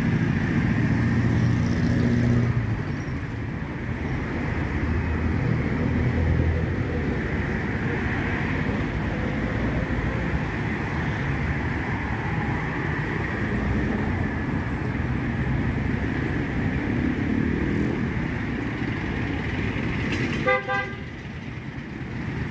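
Road traffic: cars, vans and motorcycles passing close by with a steady engine and tyre rumble. One short vehicle horn toot near the end.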